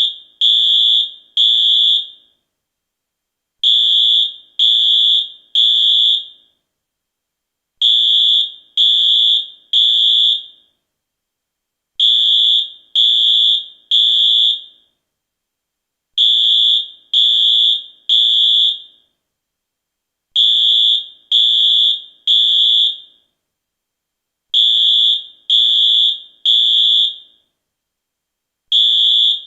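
US fire alarm sounding high-pitched beeps in groups of three, each beep about half a second long, with a pause of about a second and a half between groups, repeating steadily. This three-beep rhythm is the temporal-three code that signals a fire evacuation.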